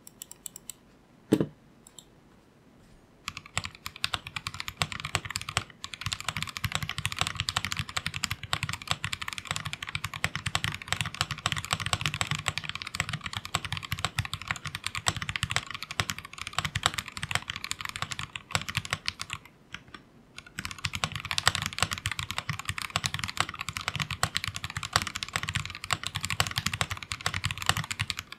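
Typing test on a custom stacked-acrylic TKL mechanical keyboard with a polycarbonate plate and PBT keycaps. A few single key clicks and one knock come first, then fast continuous typing starts about three seconds in. The typing breaks off for about a second two-thirds of the way through, then resumes.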